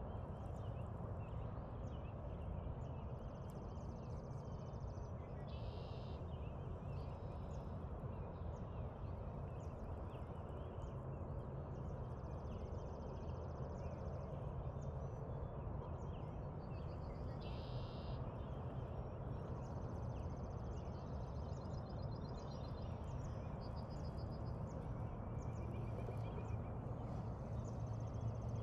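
Birds calling with short high chirps and trills every few seconds, over a steady low outdoor background noise.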